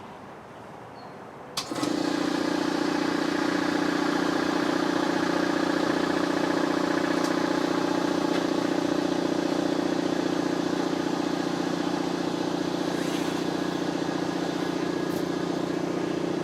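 An electric machine switches on with a click about a second and a half in and then runs with a steady, unchanging hum.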